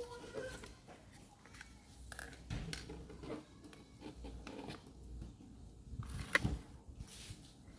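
Scattered handling sounds: light clicks and scrapes, with one sharper click about six seconds in.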